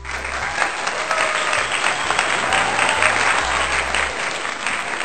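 Applause: a dense burst of many hands clapping that starts abruptly, with faint background music underneath.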